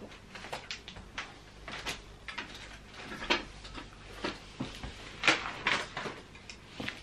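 A taped cardboard parcel being handled and shifted about on a table: scattered knocks, scrapes and rustles, with a few louder knocks a little after three seconds and again around five to six seconds.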